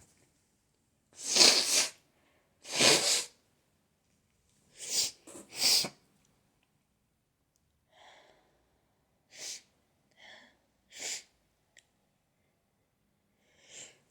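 A person sneezing in a rapid fit from spring allergies: four loud sneezes in the first six seconds, the last two close together, then several fainter, shorter ones.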